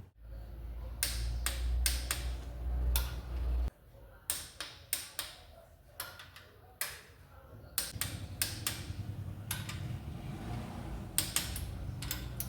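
Irregular metallic clicks and knocks of hand tools working on a gearbox's bolted differential cover, over a low hum that cuts off about four seconds in.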